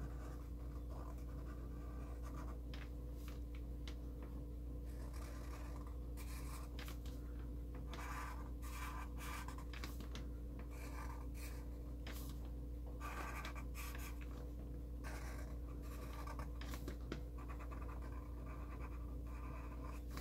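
Sharpie fine-point permanent marker drawn across paper in short, irregular strokes, going over outlines again and again to make the lines thicker. A faint steady hum runs underneath.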